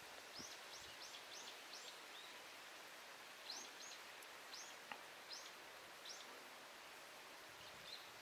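Faint bird chirping: short high chirps in quick runs of three to five, over a steady outdoor hiss.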